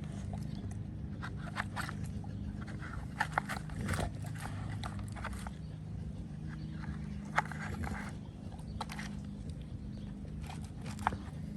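A dog working a plastic brick puzzle toy: irregular clicks and knocks as the plastic pieces are nosed, pawed and slid about, a few louder knocks standing out.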